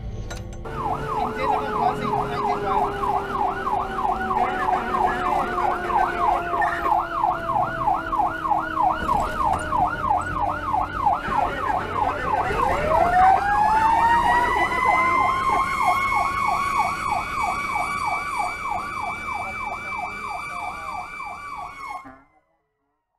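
Fire truck sirens on an emergency run. An electronic siren yelps rapidly at about three sweeps a second. Under it a second siren tone slowly falls, then winds up sharply about halfway through and holds a steady high wail, until everything cuts off abruptly near the end.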